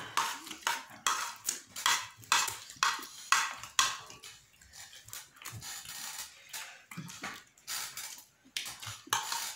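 Metal spoon and fingers scraping rice up off plates: short quick scrapes about two to three a second for the first four seconds, then fainter and sparser, picking up again near the end.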